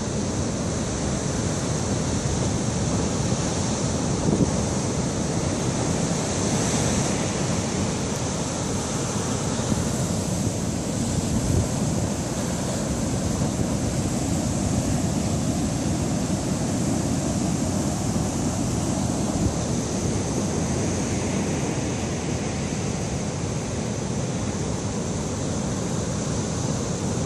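Heavy storm surf breaking continuously on a rocky shore, a steady wash of waves and foam, with wind buffeting the microphone.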